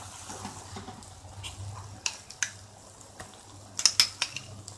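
Wooden spatula stirring thick masala gravy in a kadhai over a faint sizzle, with a few sharp clicks of a utensil against the pan, the loudest a quick cluster just before four seconds in.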